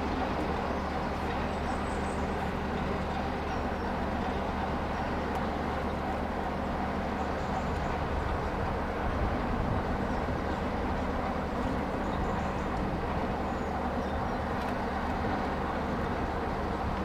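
Class 33 diesel locomotive's Sulzer eight-cylinder engine running steadily at a constant speed.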